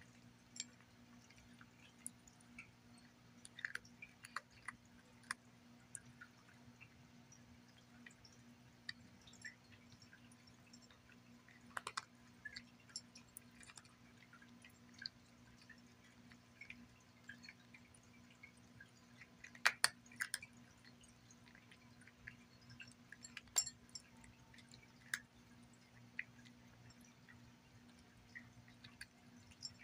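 A domestic cat crunching dry kibble from a ceramic saucer: quiet, irregular crisp crunches and clicks, a few of them louder, over a faint steady low hum.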